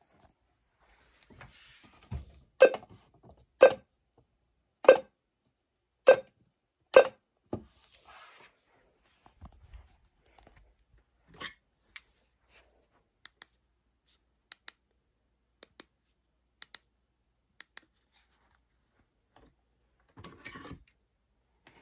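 Six sharp knocks about a second apart, then faint scattered clicks, and a short rustle of handling on a handheld weather radio near the end.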